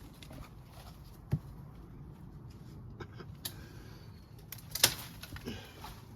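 A few scattered sharp knocks and clicks over quiet rustling, one about a second in and the loudest near five seconds in.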